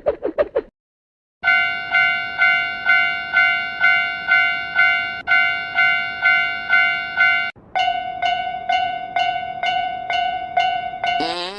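Japanese level-crossing warning bell ringing steadily at about two strikes a second, then after a brief break a second crossing bell, slightly higher and faster. A short rapid pulsing cartoon sound ends just at the start, and another pulsing, gliding comic sound begins near the end.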